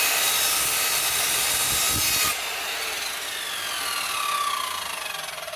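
Mitre saw running through a cut in a length of pipe. The motor cuts out about two seconds in and the blade spins down with a falling whine.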